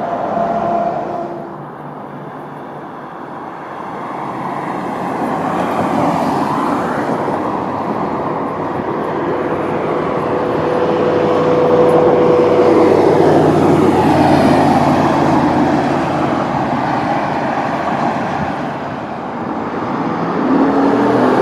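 Road traffic: motor vehicles passing, the noise building and fading as they go by, loudest a little past the middle, with a brief steady whine partway through.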